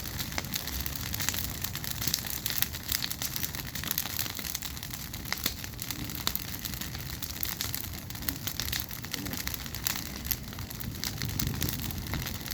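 Bonfire of bird cages crackling, with many small, irregular sharp pops and snaps over a steady hiss.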